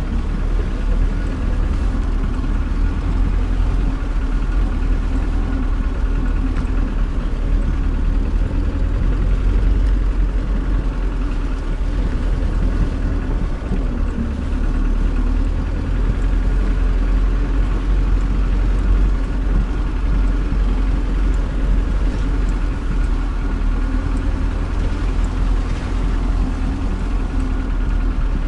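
UAZ Bukhanka van's engine running steadily, deep and even throughout, with no sharp changes in speed.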